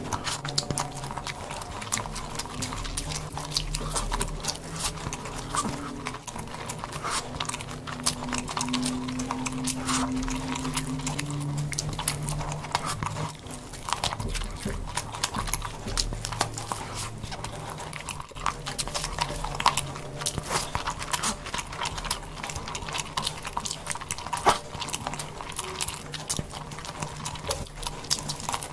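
A person chewing and smacking their lips while eating rice and chicken by hand: a dense run of wet mouth clicks, with a low hum underneath.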